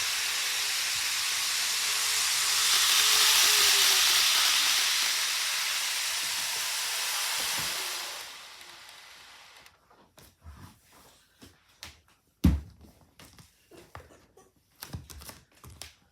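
A steady hiss that swells and then fades out about eight seconds in, followed by scattered light clicks and knocks, the loudest about twelve seconds in.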